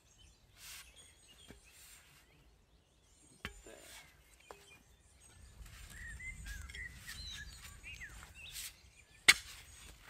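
A hand pick striking hard, stony clay ground: one sharp, loud strike near the end, with a lighter knock a few seconds before it. Birds chirp in the background.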